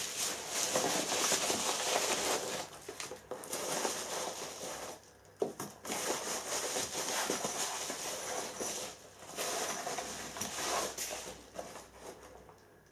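Yellow padded mailing envelope being torn open and handled, its paper and bubble lining crinkling and rustling, with bubble-wrapped contents slid out. The rustling comes in spells with two short breaks.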